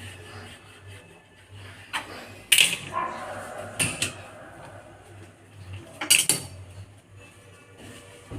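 Metal kitchen utensils clinking and knocking against dishes, a handful of sharp clinks with short ringing, the loudest about two and a half and six seconds in.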